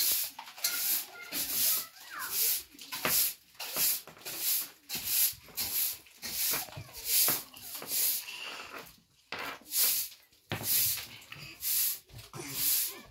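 Broom sweeping a packed-earth floor in short rasping strokes, about one and a half a second.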